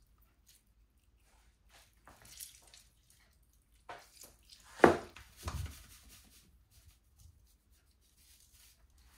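Scattered knocks and light clatter of objects being handled, with one sharp, loud knock about five seconds in and a duller one just after it.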